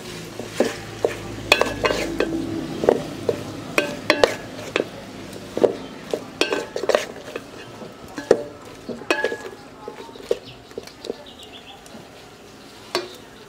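Wooden spatula clacking and scraping against a metal pot while stirring cut ridge gourd pieces, in irregular knocks that grow sparser near the end.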